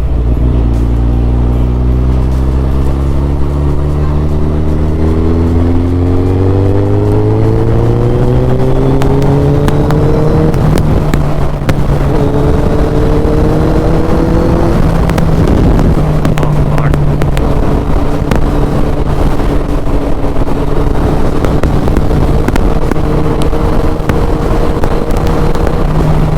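Suzuki Hayabusa's inline-four engine under way, climbing steadily in pitch as the bike accelerates for about ten seconds. It then runs at an even pitch at speed, with two brief breaks along the way.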